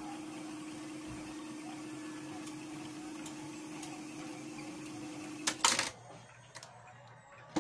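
Reel-to-reel tape deck running with a steady mechanical hum, then about five and a half seconds in a few loud clunks as its function knob is switched, after which the running sound drops away; another click near the end.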